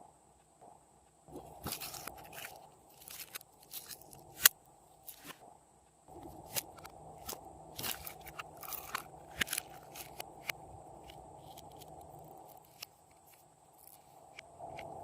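Slime being squished and pressed by hand, giving irregular crackling pops and clicks, with one sharp, louder click about four and a half seconds in.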